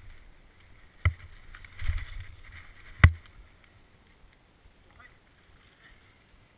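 Mountain bike rolling over a dirt trail, with two sharp knocks about two seconds apart and a dull thump between them as the bike jolts over the ground. The rolling noise fades after about three and a half seconds as the bike stops.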